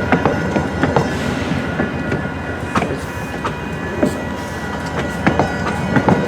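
VIA Rail passenger train's coaches rolling past close by, the wheels clicking over the rail joints in an uneven clatter.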